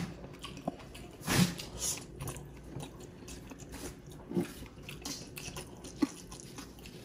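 Close-miked eating sounds: chewing and biting of food, with wet smacks and clicks and one louder burst about a second and a half in.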